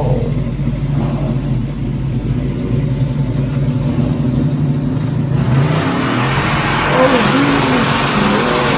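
Car engine revving in a steady low drone as the car pulls away. About five and a half seconds in, a loud noisy rush takes over.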